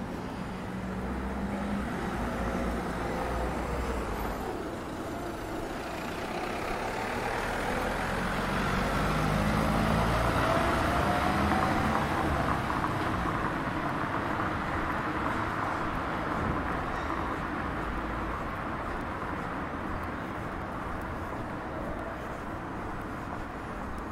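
Road vehicle engine running and passing by on a street, with engine and road noise swelling to its loudest around ten seconds in and then easing. The engine note rises near the middle.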